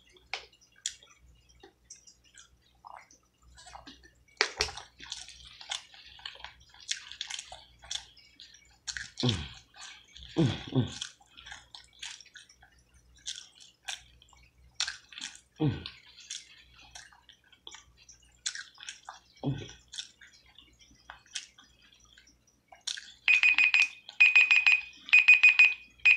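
Wet mouth sounds of eating: chewing, lip smacks and small clicks, with a few short low throat sounds. About three seconds before the end, a timer alarm starts beeping in quick groups at one high pitch, marking the end of the five-minute challenge time.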